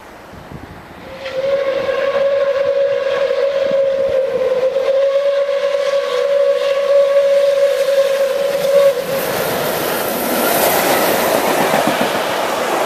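Steam whistle of DR class 01 4-6-2 locomotive 01 1075 blowing one long steady blast of about eight seconds as it approaches, its pitch dipping briefly partway. The locomotive then rushes past close by at speed, a loud mix of steam and wheel noise.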